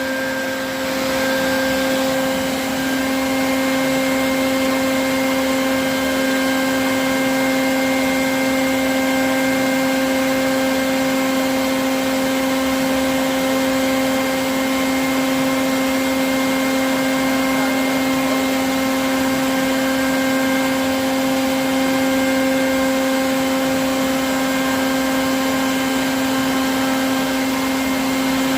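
Bee vacuum running steadily: a vacuum motor collecting bees into a bucket, giving a constant hum with a high, even whine.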